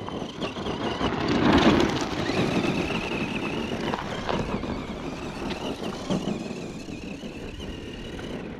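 Vintage 1/10-scale Tamiya RC monster truck with a brushed 18-turn motor whining as it drives over gravel, the pitch wavering with the throttle and the tyres crunching. The sound is loudest between one and two seconds in, then fades as the truck runs off.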